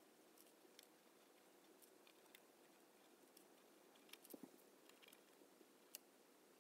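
Near silence: faint room tone with scattered soft scratches and ticks of a black ink pen nib on watercolour paper as small shapes are outlined, with a few slightly louder ticks about four seconds in and one near the end.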